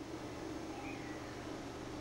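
Steady low hum over an even hiss.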